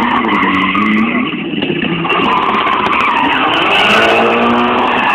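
Car drifting on a track: its engine revs hard, pitch rising and falling repeatedly, while its tyres squeal through the slide.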